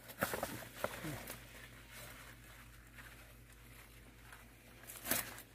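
Faint rustling of leaves and light snaps as gloved hands grasp and pull plant stalks in a dense thicket, busiest in the first second, with a brief louder sound about five seconds in.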